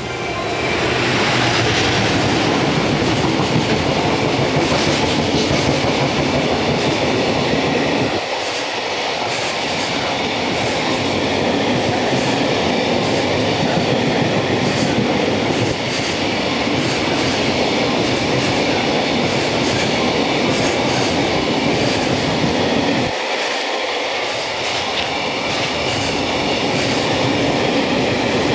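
EF210 electric locomotive passing close, followed by a long train of freight container wagons rolling by: a steady heavy rumble of steel wheels on rails with quick clicking over the rail joints. The low rumble drops away briefly twice.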